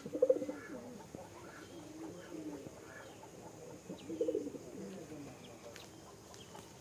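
Domestic pigeons cooing, with louder coos just after the start and again about four seconds in.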